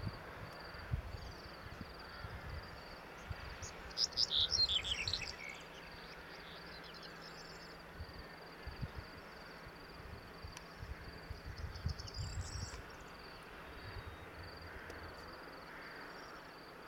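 Crickets chirping in a steady, even pulse, with a bird giving a short call about four seconds in and again, more softly, about twelve seconds in. Wind buffets the microphone now and then with low rumbles.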